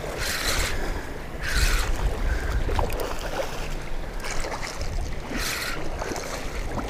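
Wind buffeting the microphone: a steady low rumble with three short hissing gusts, near the start, at about one and a half seconds, and about five seconds in.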